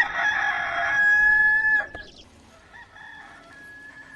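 Rooster crowing, from the Hollywood Edge 'Rooster 2 Crow' library effect: one long crow lasting nearly two seconds, followed by faint background sound.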